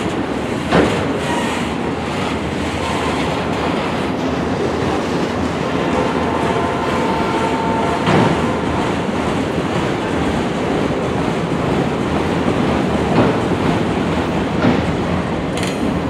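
Freight train cars rolling past on the rails: a steady rumble with a few sharp wheel clacks, and a faint high wheel squeal for about two seconds midway.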